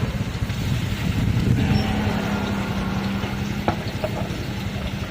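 An engine idling steadily, with a sharp click about three and a half seconds in.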